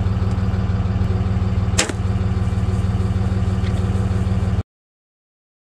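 Idling truck engine, a steady low hum, with one sharp snap of a bow being shot about two seconds in. The sound then cuts out abruptly to silence about a second before the end.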